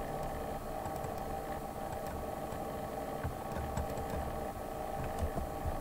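Steady low hum of background noise with a few faint clicks of a computer mouse.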